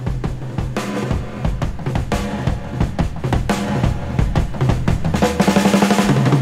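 Background music with a steady drum-kit beat, building gradually in loudness and fullness.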